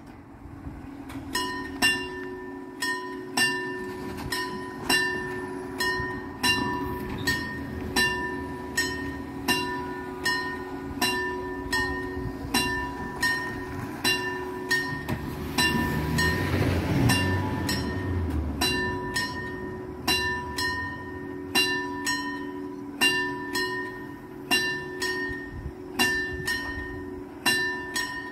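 Italian level-crossing warning bell ringing in quick, even strokes, signalling that the barriers are about to close for an approaching train. Halfway through, a car drives across the tracks, a swelling rumble under the bell.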